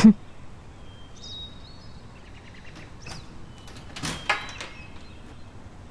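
Old wooden door being eased open: faint hinge squeaks about a second in, then a couple of sharp knocks or rattles about four seconds in.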